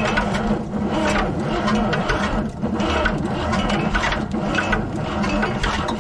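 Starter cranking a long-dormant GMC 401 V6 truck engine on starting fluid, turning it over in a steady rhythm without it catching yet.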